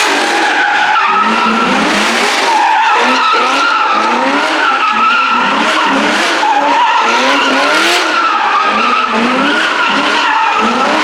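Car engine revving over and over, its pitch rising again and again about twice a second, with tyre squeal.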